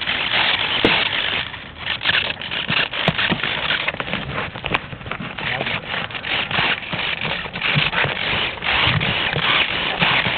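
Wind noise on a small camera's microphone, a steady rough rushing broken by frequent light knocks and scrapes of handling.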